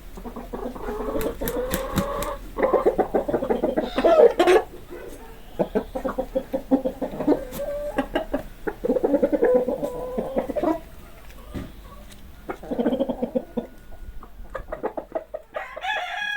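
Chicken clucking in bouts of rapid clucks, each about two seconds long with short pauses between, and a higher-pitched call near the end.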